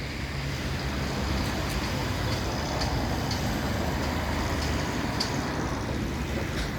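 Steady road traffic noise from vehicles running along a city street.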